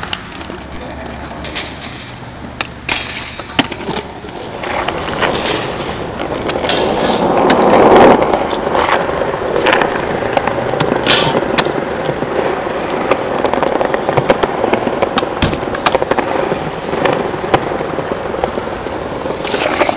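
Skateboard wheels rolling on concrete, swelling to the loudest pass about eight seconds in, with scattered sharp clacks and knocks of boards hitting the ground.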